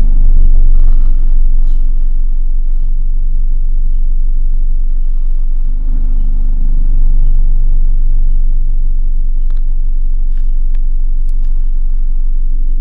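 Motor vehicle engine running steadily with a low rumble. Its note shifts slightly a few seconds in and again around halfway, and a few faint clicks come near the end.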